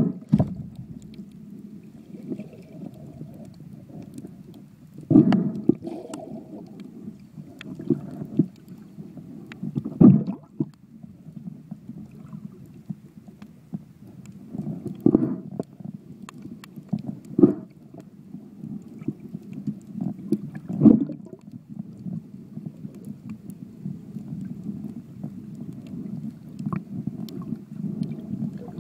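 Muffled underwater water noise picked up through a phone's sealed waterproof case: a steady low churning, with louder swishes and sharp clicks every few seconds as the case moves through the water.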